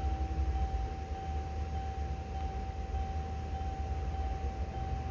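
Steady low hum with a faint, constant high whine over it, typical of a car's cabin ventilation blower running with the ignition switched on.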